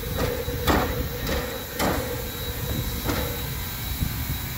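A standing train's locomotives, the 2-6-6-2 steam locomotive and an idling diesel: a steady low rumble with three sharp knocks about a second and a quarter apart.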